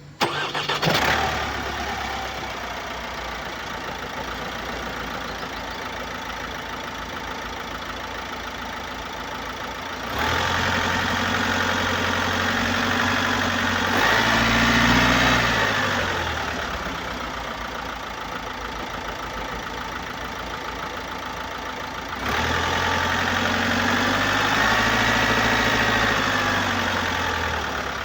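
The 2018 Opel Astra K's 1.6-litre diesel engine (B16DTH) starts within the first second and settles to idle. Its revs rise twice, about ten seconds in and again about twenty-two seconds in, and each time sink back toward idle. Its unusual noise is put down to a leak in the intake system and defective swirl flaps.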